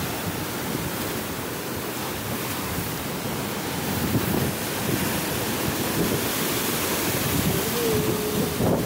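Storm-surge waves breaking and washing over a broken concrete seaside road in a continuous churning rush, with strong wind buffeting the microphone.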